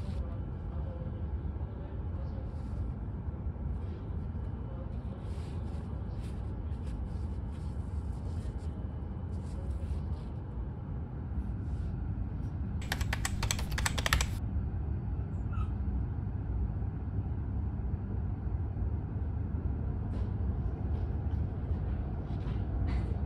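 Steady low hum inside a Shinkansen carriage, with scattered light rustles and clicks from handling things at the seat. About 13 seconds in comes a brief burst of rapid clicking. The hum grows slightly louder as the train starts to move near the end.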